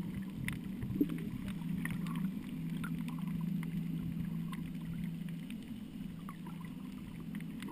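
Underwater sound picked up by a GoPro Hero 2 in its waterproof housing: a steady low hum with scattered short clicks and ticks.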